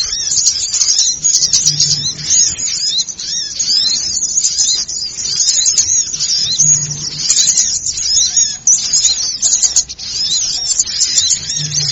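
A dense, noisy chorus of many small birds chirping and chattering rapidly and without pause, in high-pitched, overlapping short notes: a small-bird lure recording played to draw birds in.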